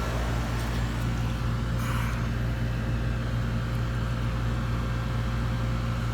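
A 16-year-old Trane R22 air-conditioning condensing unit running with a steady low hum, while it is being charged with refrigerant. A short faint hiss comes about two seconds in.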